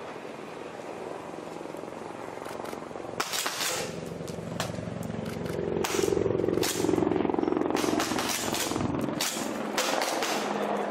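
A steady engine-like hum that swells in the middle, with many sharp knocks and clicks starting about three seconds in.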